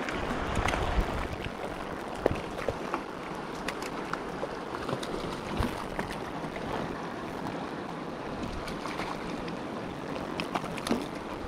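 Mountain river water rushing steadily, an even wash of noise, with scattered small clicks and taps on top.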